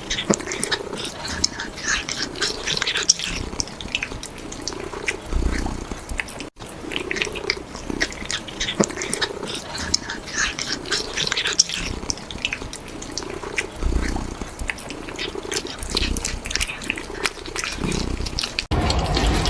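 Kittens chewing meat: fast wet clicking and smacking of eating, over low rumbling purr-like sounds that come and go about once a second. Near the end a louder steady rush like running tap water takes over.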